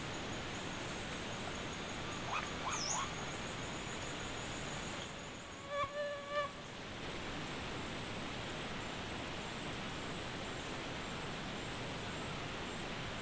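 Steady outdoor hiss with a thin, high, continuous insect-like whine. A few faint short chirps come about two to three seconds in. About six seconds in, the loudest sound is a short pitched animal call of about three quick notes.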